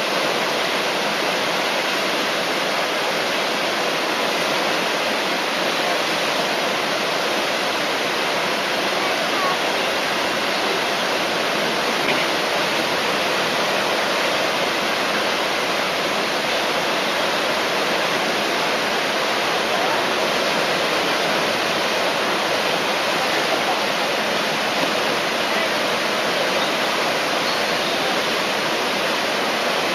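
Whitewater of the Eisbach river's standing wave rushing steadily and loudly, an unbroken wash of water noise.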